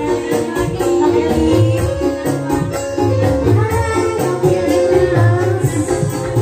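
Live dangdut band playing loudly through a PA system. Electric guitar, bass and a fast, steady hand-drum beat run under a wavering melody line.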